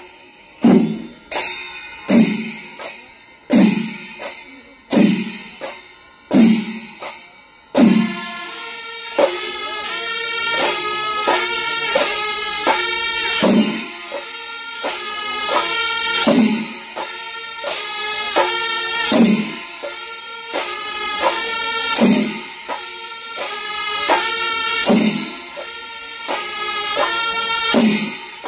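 Music with percussion: heavy drum strikes about every second and a half for the first eight seconds or so, then a melody of quick, high notes over a lighter, steady beat.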